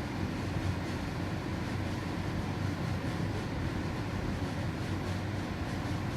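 Steady low rumble of distant city traffic, with no distinct firework bangs.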